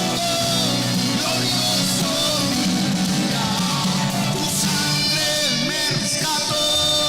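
Christian worship band playing a rock-style song, a voice singing over guitar and a steady band backing.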